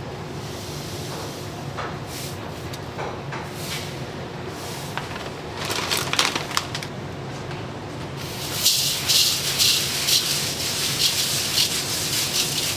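Toasted sesame seeds poured from a bag onto a mound of cooked rice in a stainless steel bowl, then rubbed and spread over it by a gloved hand: a dry, gritty rustling. It comes in short bursts at first and turns continuous and louder from about two-thirds of the way in, over a steady low hum.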